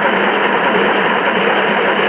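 Gauge 1 model of a class 44 steam locomotive running past, its onboard digital sound system playing a loud, steady steam-locomotive running sound, mixed with the model's wheels rolling on the rails.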